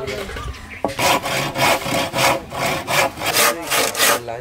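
Hand saw cutting through a bamboo pole in steady back-and-forth strokes, about three a second, starting about a second in.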